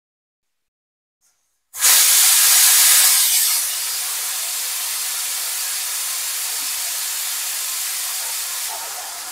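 Water running from a tap into a vessel: a rushing hiss that starts suddenly about two seconds in, loudest at first, then runs on steadily.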